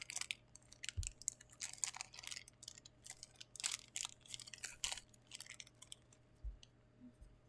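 Hands handling crinkly plastic packaging: irregular crackles and clicks, with a couple of soft thumps.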